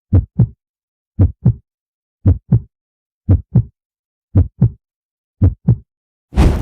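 Heartbeat sound effect: six slow double thumps, lub-dub, about one a second, deep and dry with silence between. A loud boom cuts in right at the end.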